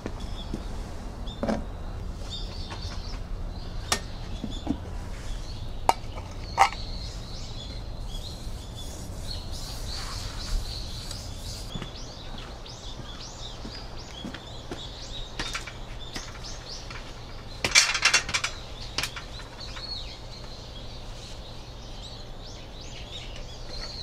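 Small birds chirping now and then over a steady low background rumble, with scattered clinks and knocks from a metal paint can and an aluminium stepladder being handled. There is a brief clattering rattle about eighteen seconds in.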